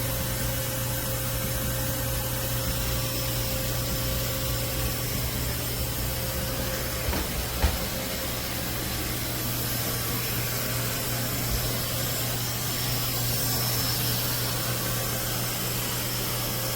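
Narwal Freo X Plus robot vacuum running steadily at its strongest "super powerful" suction setting, a constant hum under an even rushing noise. A single short knock about halfway through.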